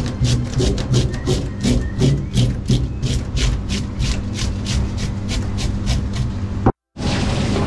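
A scaling tool scraping the scales off a whole grouper in a stainless-steel sink, in quick repeated strokes about three a second. It breaks off abruptly near the end.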